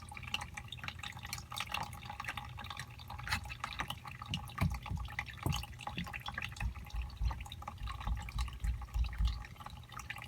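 Condensate water dripping and splashing in quick, irregular drops out of an air conditioner's indoor unit whose condensate drain is clogged, over a low steady hum.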